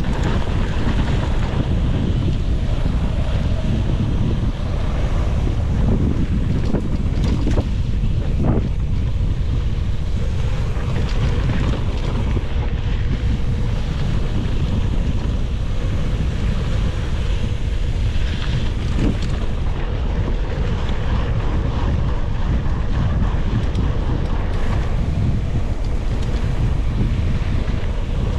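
Wind buffeting an action camera's microphone during a mountain-bike ride, a steady loud rumble, with a few short knocks from the bike about seven to nine seconds in.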